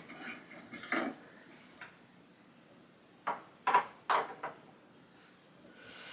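Light fixture and bulb being handled by hand: a short knock about a second in, then a quick cluster of three or four sharp clicks and scrapes a little past the middle.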